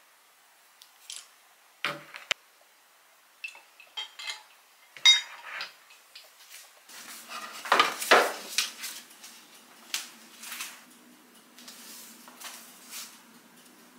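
Ceramic plates, bowls and cutlery clinking and clattering as dishes are cleared from a table: a series of separate knocks and ringing clinks, the loudest a longer clatter about eight seconds in.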